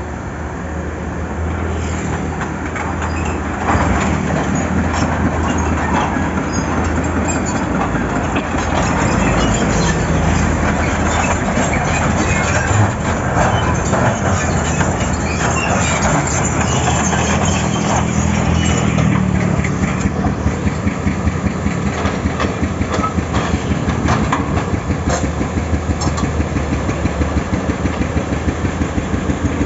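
Heavy excavator's diesel engine running under load, with a hydraulic breaker hammer pounding in rapid, even blows. The blows are steadiest and most regular in the last ten seconds.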